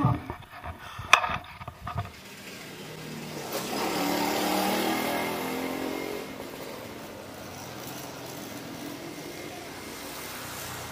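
A few sharp knocks in the first two seconds, then a motorbike passes on the road, its engine swelling and fading between about four and six seconds in, followed by a steady low traffic hum.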